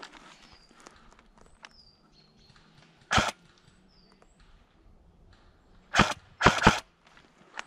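Airsoft sniper rifle firing: one sharp shot about three seconds in, then three sharp clacks in quick succession near the end, as the rifle runs out of BBs. Faint short descending bird chirps in between.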